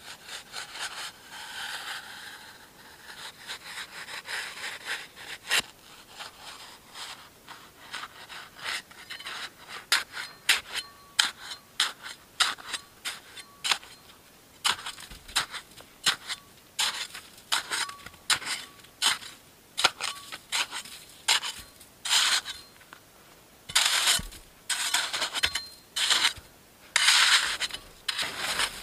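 Small hand shovel scraping and carving packed snow, cutting out an igloo doorway. The strokes are uneven, softer at first and louder and more separate after about ten seconds, roughly one or two a second.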